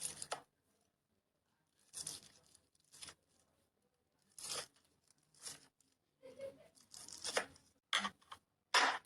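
Slime being handled by hand, making about eight short, separate squishing sounds with quiet pauses between them; the loudest comes near the end.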